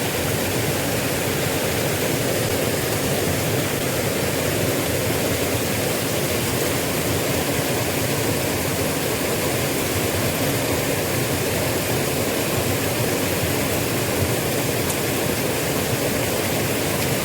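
Steady rushing of a small river's flowing water, an even hiss with no change in level.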